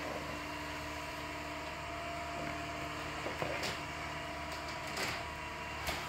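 A steady mechanical hum, with a few light clicks of a robot vacuum's plastic dustbin being handled and its filter lid opened, the last just before the end.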